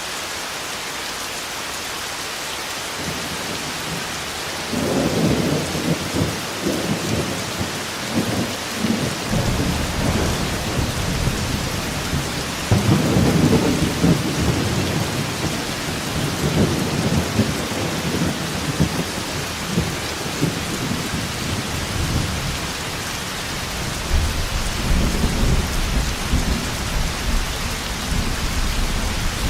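Heavy rain falling steadily, with deep rolling thunder that begins a few seconds in and swells and fades several times.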